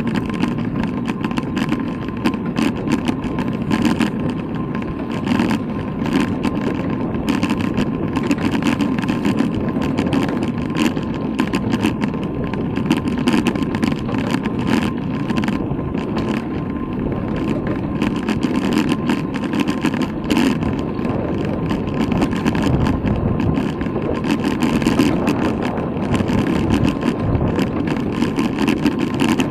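Steady rumble of wind and tyre noise picked up by a bicycle-mounted camera while riding, with frequent small knocks and rattles throughout.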